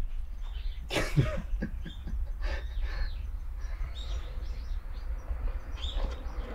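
Small birds chirping on and off in the background over a low steady rumble, with one short cough-like throat sound about a second in.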